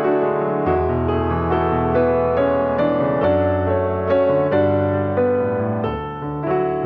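Background music: a slow, gentle piano piece, notes struck about twice a second over held bass notes.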